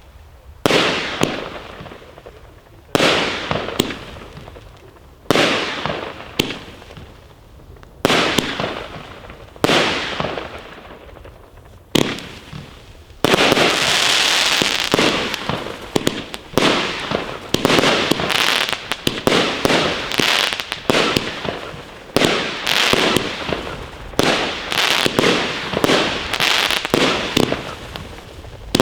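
Firework cakes firing: first a Weco Goldfinger battery launching single shots every two seconds or so, each followed by a fading crackling trail. About halfway through, this gives way to a dense, continuous barrage of rapid shots and crackling.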